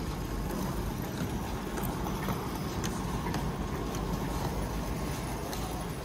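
Railway platform ambience: steady background noise with scattered footsteps and light clicks, such as rolling luggage, as passengers walk past a parked high-speed train.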